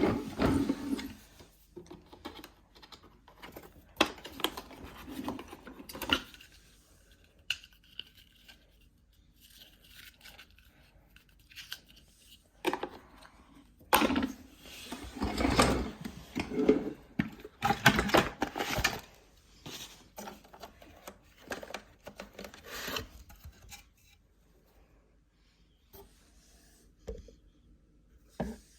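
Handling noise from a bagged vacuum cleaner being examined: irregular rubbing, scraping and knocks in short bursts with quiet gaps, and no motor running.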